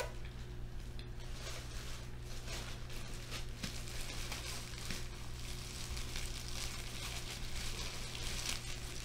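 Faint crinkling and rustling handling noise, irregular crackles over a steady low electrical hum.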